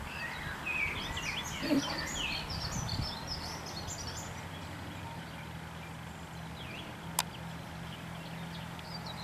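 Mercedes-Benz Unimog's diesel engine running steadily as a low hum. Birds chirp over it during the first few seconds, and there is a single sharp click about seven seconds in.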